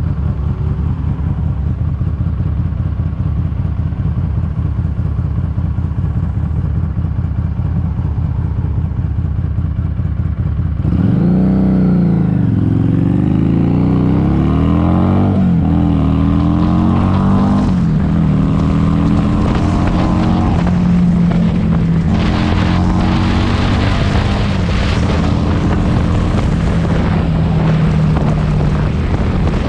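Harley-Davidson Street 500's V-twin, through an aftermarket TAB Performance exhaust, running steady at low revs. About eleven seconds in it revs up and pulls away, the pitch climbing in steps as it shifts up through the gears. It then settles into a steady cruise, with wind rushing on the microphone toward the end.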